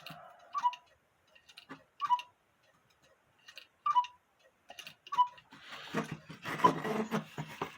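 Quarter-hour cuckoo clock ticking in separate clicks. About five and a half seconds in, its bellows and pipes sound a single drawn-out cuckoo with an airy rush.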